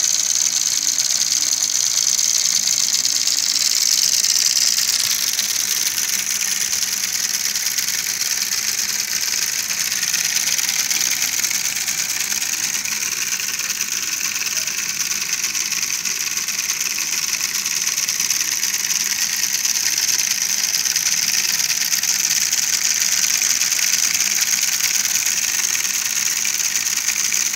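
Small electric motors of a homemade model combine harvester running steadily, driving its belts and reel with a continuous high-pitched whir.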